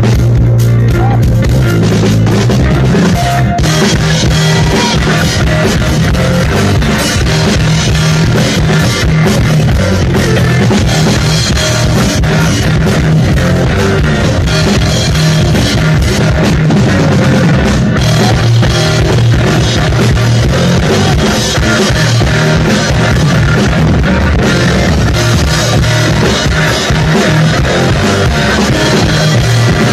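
A rock band playing live and loud: electric guitar over a drum kit.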